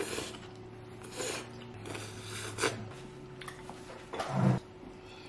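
A person eating spicy noodles with chopsticks: short breathy slurps and sniffs, about four in the first three seconds. A louder, lower breathy burst comes about four seconds in, as a paper napkin is handled.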